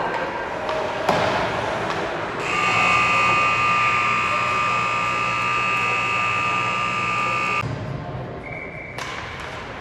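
Ice-rink horn sounding one steady, multi-toned blast for about five seconds, then cutting off suddenly, marking the end of a hockey period.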